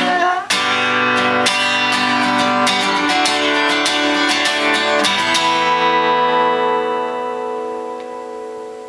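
Acoustic guitar being strummed in a steady rhythm. About five and a half seconds in it is struck a final time, and that chord rings out and slowly fades.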